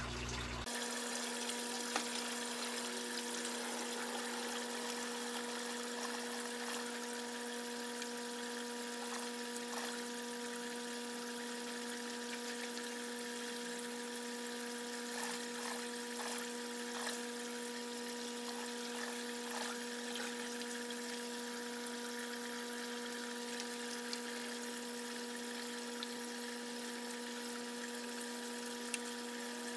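Steady electric hum of small running motor equipment with a high hiss behind it, and a few short, faint clicks of scissors snipping tomato leaves.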